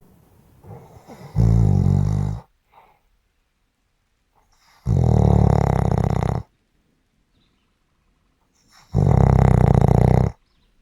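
Snoring: three loud snores about four seconds apart, each lasting a second or more with a fast rattling flutter, and near silence between them.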